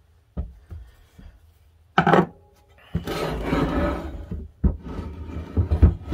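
Rusty iron andiron being handled and shifted on a wooden workbench: a few light knocks, a sharp metallic clank about two seconds in, then a scraping rub lasting a second or so, and more knocks near the end.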